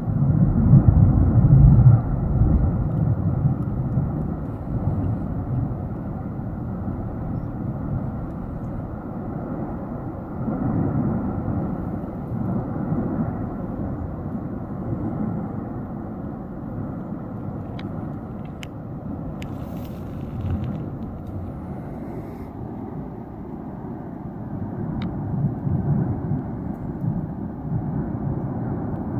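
Tajogaite volcano erupting: a continuous deep rumble that swells in surges, loudest in the first two seconds and rising again about eleven seconds in and near the end.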